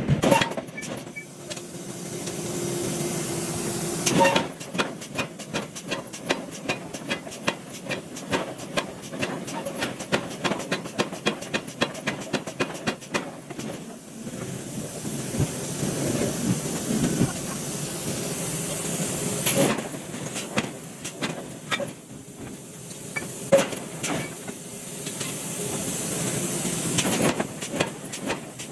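Hydraulic steel-forging machinery at work: spells of loud steady hissing alternate with long runs of quick, sharp metal knocks.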